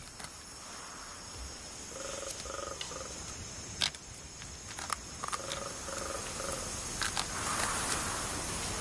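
Forest ambience with an animal calling in short hooting notes, three or four at a time and repeated twice, over a steady high insect hum. A few sharp snaps or cracks come between the calls.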